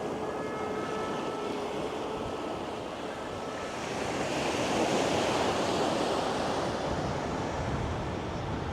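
Surf washing on the shore with wind on the microphone, swelling to its loudest about halfway through and then easing. A faint whine fades out in the first two seconds.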